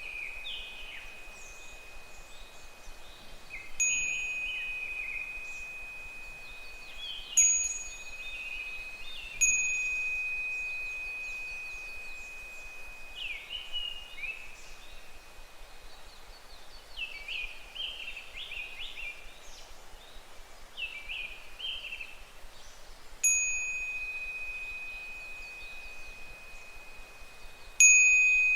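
Japanese fūrin wind chime struck by its clapper five times, each strike a single clear ringing note that slowly dies away. Between the strikes higurashi (evening cicadas) call in runs of short falling notes, busiest in the middle.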